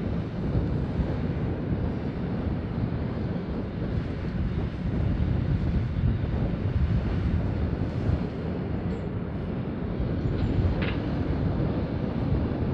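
Heavy mining equipment working: the diesel engines of a Hitachi 870 excavator loading Caterpillar 777 haul trucks, a steady low rumble.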